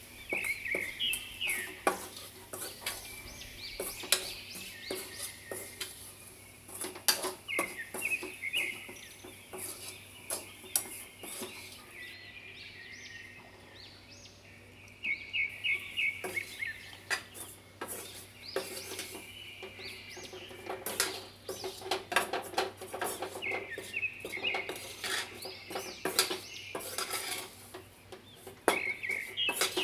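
Metal spoon stirring and scraping a dry grated coconut and wheat flour mixture in a metal kadai, with frequent clinks against the pan. The stirring lets up for a few seconds about halfway through.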